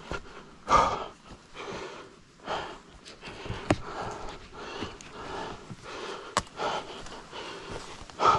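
A person panting hard, with a loud breath about once a second, and a few sharp knocks in between.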